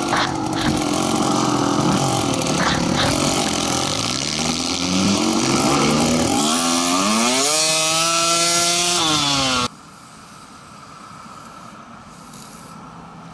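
Dirt bike engine running and revving while riding on snow, its pitch climbing and falling several times. About ten seconds in, the engine sound cuts off abruptly, leaving only a faint hiss.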